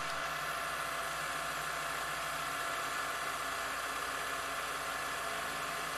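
Stepper-motor CNC milling machine running, its spindle turning a 1 mm end mill that cuts a groove in the head of a steel screw: a steady whir made of several even tones over a hiss, with no change in level.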